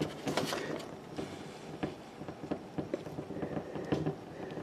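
A cord being pulled out from under a 1968 Ford Mustang's rubber rear-window gasket, with irregular soft rubbing, creaks and ticks as the seal lip rolls over the pinch weld. The scraping is a little louder in the first half second.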